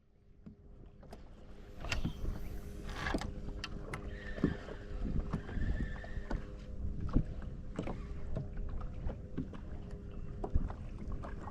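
Knocks, clicks and water sounds on a small fishing boat over a steady low hum, while a hooked fish is being fought.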